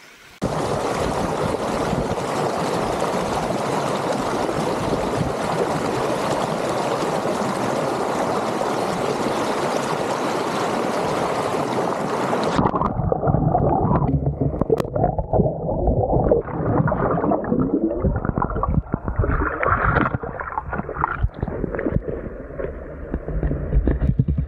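Shallow mountain stream rushing over rocks close by, a steady rush of water. About halfway it turns muffled and gurgling, heard from right at the water surface, with irregular splashes from a dog wading in the stream.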